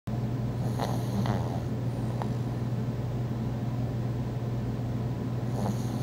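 Pug snoring in its sleep: a steady low drone with rattling snorts, a pair about a second in and another near the end.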